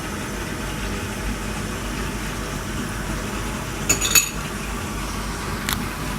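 Kitchen utensil clinking sharply against cookware in a quick cluster about four seconds in and once more near the end, over a steady background noise.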